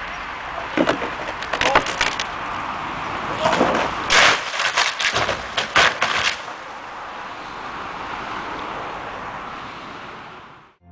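A tall section of an old oak trunk cracking and crashing to the ground: a few sharp cracks in the first two seconds, then a burst of loud crashes and splintering from about three and a half to six seconds in, over steady background noise.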